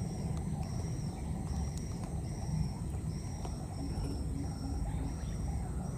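Insects chirping in a repeating run of high-pitched trills, each about half a second long with short gaps between. Underneath is a steady low rumble, the loudest part of the sound.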